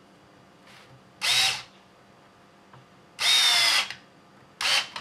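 A small cordless electric screwdriver whirs in three short bursts as it drives a shock-mounting screw into a plastic RC truck chassis. The middle burst is the longest.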